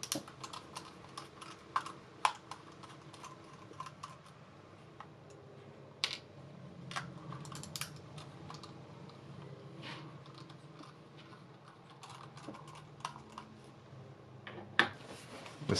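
Small precision screwdriver working the screws out of the plastic underside of a Corsair M65 gaming mouse: irregular light clicks and ticks of the metal bit and the plastic shell being handled.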